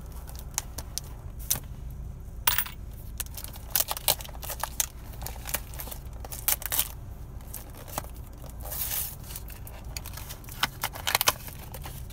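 Small cardboard blind boxes of Funko Mystery Minis being handled, shaken and opened: an irregular string of sharp clicks, taps and rattles. A steady low hum runs underneath.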